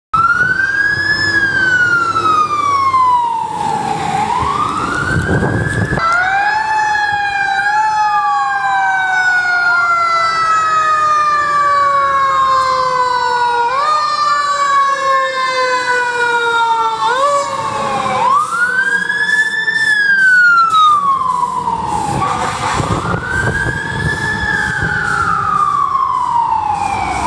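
Fire truck sirens wailing, the pitch rising quickly and falling slowly over and over. In the middle stretch several sirens sound at once and overlap.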